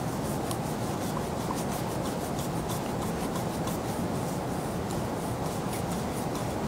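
Many quick, irregular, faint scratchy rubbing strokes over a steady low rumble of room noise.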